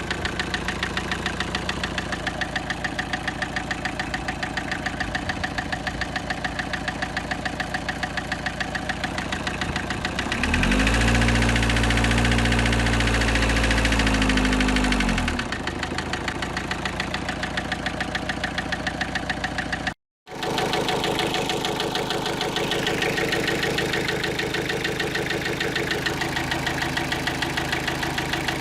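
Car engine idling with an even, rapid knocking tick. About ten seconds in it is revved up and held for about five seconds, then drops back to idle. After a brief cut to silence it idles again. The knock is the abnormal engine noise the owner wants diagnosed, which the video puts down to the piston side of the engine.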